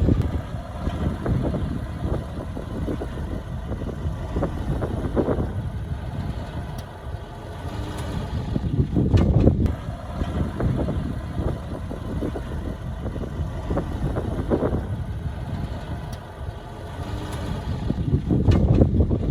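Heavy diesel engine of earthmoving machinery running steadily, swelling louder twice: about halfway through and again near the end.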